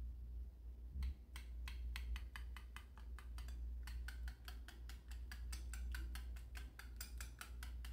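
A wire whisk ticking against a ceramic bowl as egg batter is beaten, quick clicks about four a second, starting about a second in and coming faster near the end.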